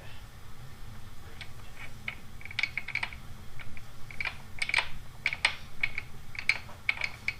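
Small handlebar-damper parts being fitted by hand, making a run of light, irregular clicks and taps, over a low steady hum.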